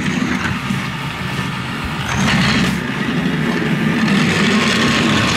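Battery-powered LEGO toy train running along its plastic track, the small electric motor and wheels making a steady running noise that grows a little louder about two seconds in.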